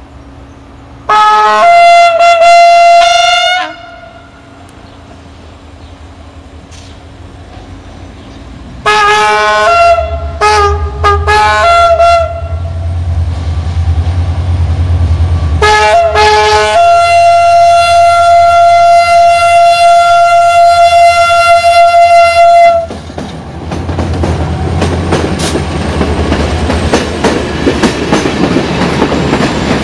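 Diesel passenger-train locomotive horn: one blast of about two seconds, then a run of short blasts, then a few more short blasts and one long held blast of about six seconds, over the low rumble of the diesel engine. After that the train passes close by, with wheels clattering over the rail joints.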